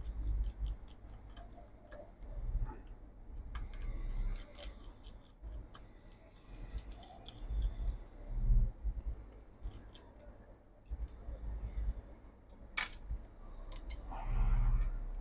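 Light clicks and ticks of small parts and tools being handled inside an open MacBook Pro A1990 during disassembly, with a few dull knocks against the bench and one sharper click near the end.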